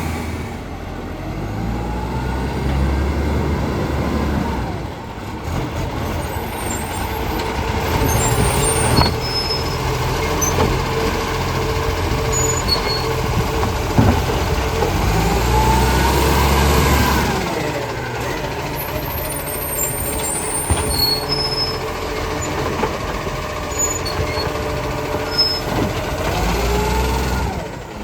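Garbage truck's diesel engine running and revving up and down several times, with a steady whine over it and occasional clanks.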